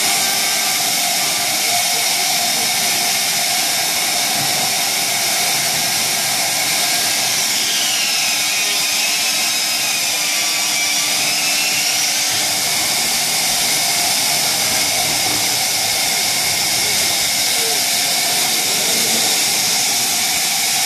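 Thermwood C67 DT five-axis CNC router running: a loud, steady rushing hiss, with a faint whine that rises and falls for a few seconds midway as the machine moves.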